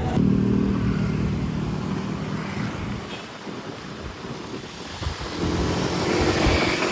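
Street traffic: a vehicle engine humming, fading away in the middle, then another vehicle coming close and growing louder near the end.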